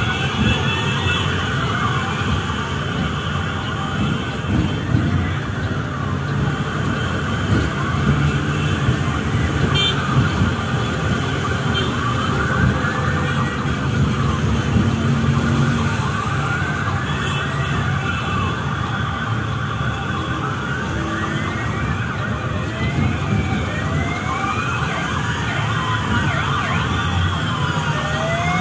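Police escort sirens wailing, several at once with overlapping rising and falling tones, over the steady engine and road rumble of a motorcycle convoy.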